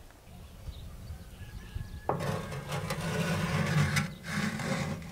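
A black metal pan knocks against and scrapes across the metal floor of a wood-burning stove's oven as it is pushed in: a sharp knock about two seconds in, then about three seconds of scraping and clattering.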